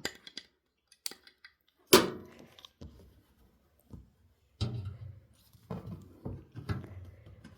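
Hard drive parts and a hand tool knocking on a hard surface. One sharp clack comes about two seconds in, then after a pause a series of smaller knocks and scrapes.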